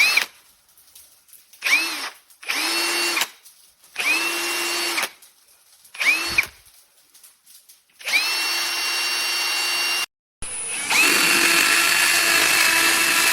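AEG BSB18CBL-0 18-volt cordless drill motor run in a string of trigger pulls: each one spins up quickly to a steady whine and stops, the first few brief, then several longer runs of a second or more, the last lasting about two and a half seconds.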